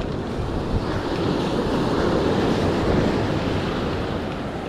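Ocean surf breaking and washing up the sand, swelling and then easing off, with wind buffeting the microphone.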